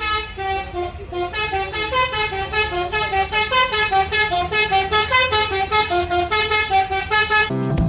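Telolet basuri bus horn playing a fast melody of tooting notes that jump between pitches, cutting off abruptly near the end.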